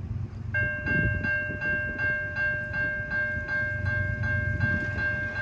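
Siemens low-tone electronic crossing bell starts about half a second in and rings steadily, about two to three strikes a second, over a low rumble. The bell activating signals that a train is approaching the crossing.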